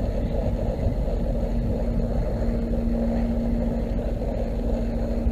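Wind rumbling on the microphone of a head-mounted camera over open water, with a steady low hum underneath.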